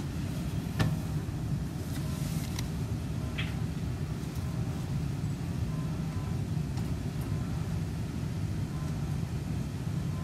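Seibu 40000 series electric train running between stations, heard from on board: a steady low rumble of wheels on the rails, with a few short clicks in the first few seconds.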